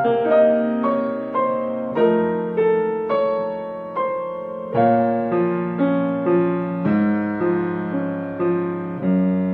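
Piano playing a slow ballad, chords struck about twice a second, each ringing and fading before the next.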